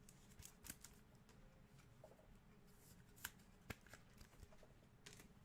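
Near silence with a few faint, sharp clicks and rustles, the strongest two close together a little past the middle, from trading cards being handled.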